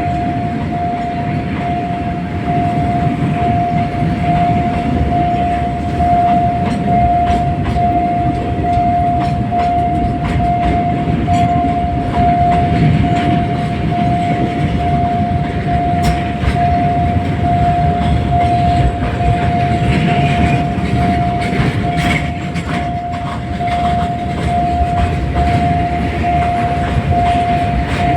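Train wagons rolling over a road level crossing: a steady low rumble of wheels on rail with clicks and knocks from the wheels over the rail joints. Over it the crossing's warning signal sounds one steady pulsing tone.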